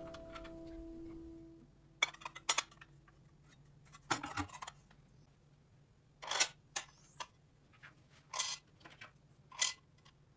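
The last note of guitar music fades out in the first second or two. It is followed by a scattered series of sharp clicks and knocks, about eight in all, spread over several seconds, from small hard objects being handled and set down.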